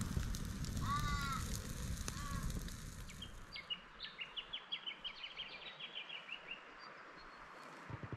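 Wood fire crackling in a steel fire pit, with a short repeated bird call about a second in. After about three seconds the fire gives way to a bird singing a quick run of short, high notes that slowly fall in pitch for about three seconds.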